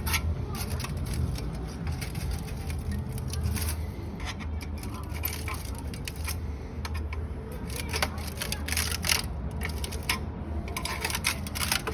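Motorcycle engine idling steadily, with light irregular ticking and rattling over it.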